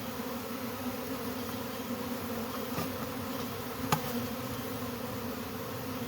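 Steady hum of a large mass of honeybees flying around a hive that is being opened up and removed. A single sharp click about four seconds in.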